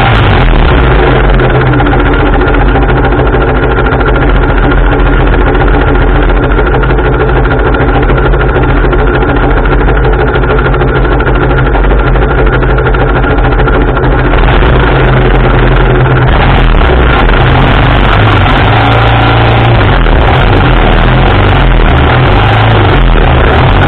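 1987 BMW R80RT's air-cooled flat-twin boxer engine running loud and close, idling just after being started. About two-thirds of the way through its sound changes as the bike moves off, with wind noise crackling on the microphone in the last few seconds.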